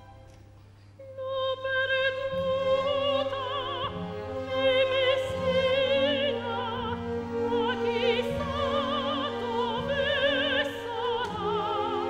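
Operatic singing with wide vibrato over an orchestra. The music comes in about a second in, after a brief quieter moment.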